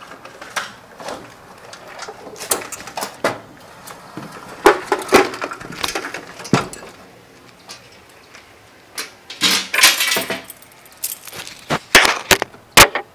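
Irregular metallic clicks, knocks and rattles from handling a Wheelock DV-200 voice-evacuation fire alarm panel's metal cabinet as it is taken down. The knocks come in busy clusters, heaviest in the second half.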